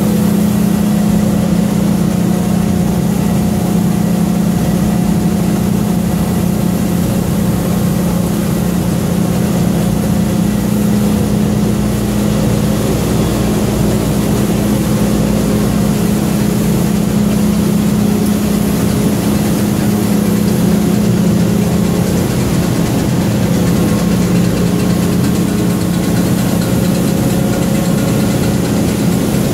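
Kidder 886 Centraflex central-impression flexographic printing press running with printed film feeding through it. It makes a steady mechanical drone with a strong low hum that does not change.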